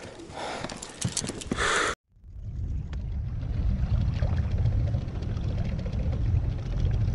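Scattered clicks and rustles of a caught fish being handled. After a sudden cut about two seconds in, a small outboard motor on an inflatable boat runs steadily at trolling speed as a low, even rumble.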